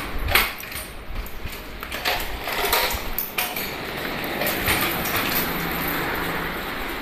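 Kick scooter rolling over a tiled floor, its small wheels rumbling, with a string of clattering knocks and clicks.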